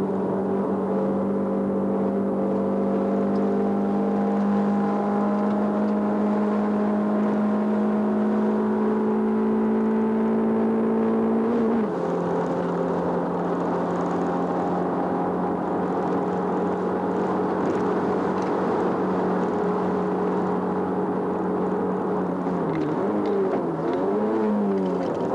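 Race car engine heard from inside the cabin, pulling hard uphill with revs climbing steadily, an upshift about twelve seconds in, then climbing again. Near the end the revs drop and rise twice, downshifts with throttle blips on braking for a hairpin.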